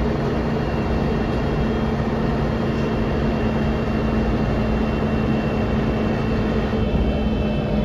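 Inside the cabin of a 1999 Mercedes-Benz O405NH city bus on the move: steady engine and road noise with a thin high whine over it.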